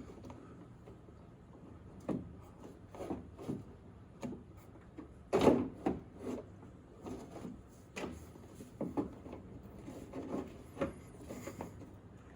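Hands working parts inside a car door: scattered clunks, rattles and scrapes of metal and plastic pieces being fitted. The loudest knock comes about five and a half seconds in.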